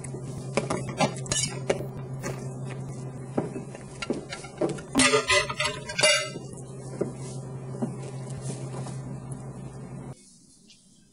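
Dishes and cutlery clinking and clattering, with a louder run of clatter about five seconds in, over a steady low hum. The sound drops away abruptly near the end.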